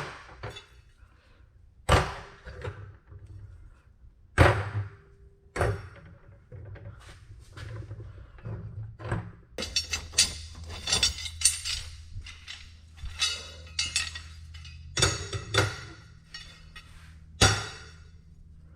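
Steel rebar and metal rebar stands being handled and set down: a series of metal clanks and knocks, with a busy run of clinking in the middle.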